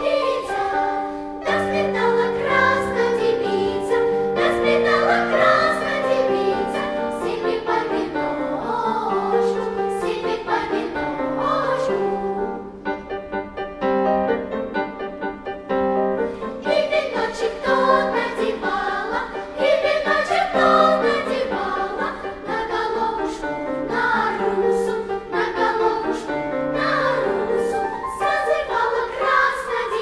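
Children's choir singing a Russian folk song with instrumental accompaniment, softer for a few seconds about halfway through.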